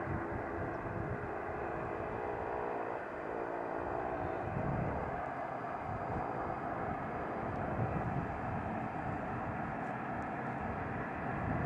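ATR 72-500 twin-turboprop airliner taxiing, its Pratt & Whitney PW127 engines and propellers giving a steady drone with a hum of several tones.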